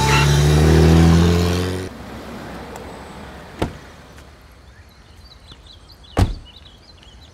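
A BMW SUV's engine revving up, which stops abruptly after about two seconds. Then comes a click, and about six seconds in the car door is slammed shut, with faint bird chirps around it.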